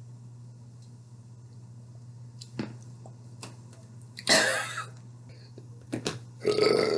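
A low steady hum with a few light clicks, a short rough vocal noise from a person, much like throat clearing, a little past four seconds in, and a brief voiced sound near the end.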